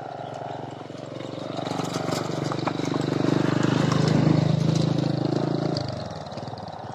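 A Pegon kite's sendaren (bow hummer) buzzing in the wind with a low, rasping drone, the 'snoring' sound. It grows louder toward the middle and then fades.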